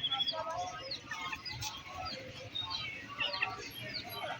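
Many small caged birds chirping together in quick, high, falling notes, over a background of voices or music.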